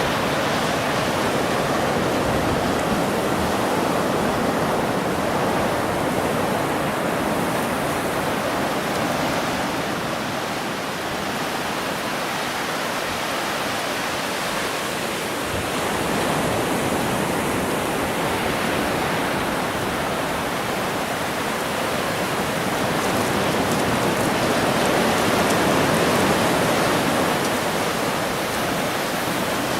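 Ocean surf breaking and washing up the beach: a steady rushing that slowly swells and eases.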